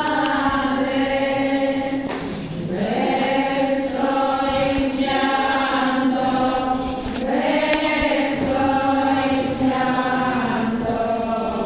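Slow sung religious chant: one melody line of long held notes that dip and rise in pitch about two and seven seconds in.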